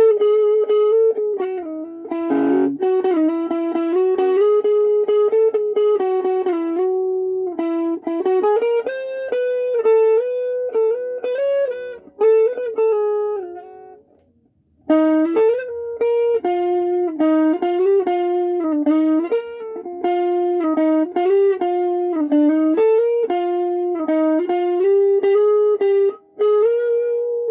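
Thomson Les Paul-style electric guitar played through a small practice amp: a single-note melody picked note by note, breaking off briefly about halfway before the line picks up again.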